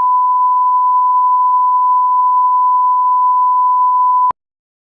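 Steady 1 kHz line-up test tone of a broadcast bars-and-tone signal, one unbroken pure beep that cuts off sharply a little over four seconds in.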